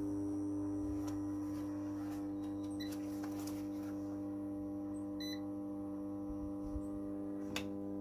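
Microwave oven transformer humming steadily under a dead-short load, its heavy-cable secondary shorted through an M8 bolt and drawing about 500 amps. A few faint ticks come through over the hum.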